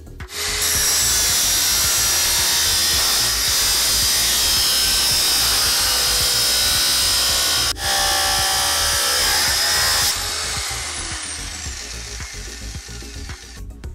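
Abrasive cut-off saw (chop saw) cutting through stainless steel: a loud, steady grinding hiss with a high whine. It breaks for an instant about eight seconds in, then the cut ends about ten seconds in and the whine falls away as the disc spins down.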